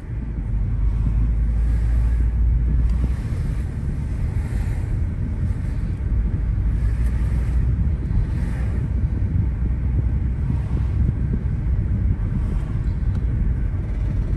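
Steady low rumble and road noise inside the cabin of a moving Lexus GS300. It is the weird noise that the owner thinks may be worn front wheel bearings.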